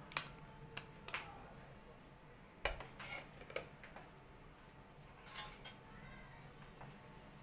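Scattered light clicks and knocks of kitchenware being handled, about eight in all, over a faint steady low hum.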